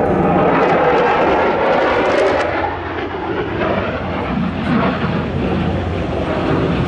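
Twin turbofan engines of a Sukhoi Su-35 fighter running at high thrust during a flying display: a loud, rough jet rumble with crackle in it. It eases a little around the middle and builds again near the end.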